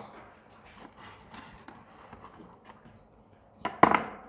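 Light, irregular tapping and clicking of a knife cutting food on a cutting board, with one louder knock near the end.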